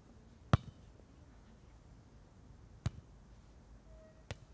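Hands striking a beach volleyball three times in a rally: three sharp slaps, the loudest about half a second in, then one near three seconds and one just before the end.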